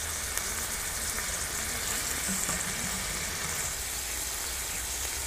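Chicken keema sizzling steadily in an aluminium pot on the burner: a continuous even hiss.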